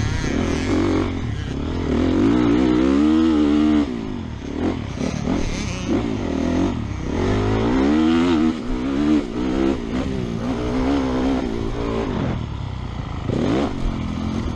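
Honda 450 motocross bike's single-cylinder four-stroke engine under hard racing throttle, its pitch climbing as it is opened up and dropping as it is shut off or shifted, with a sharp drop about four seconds in. Heard from the rider's helmet camera, with wind and dirt noise under it.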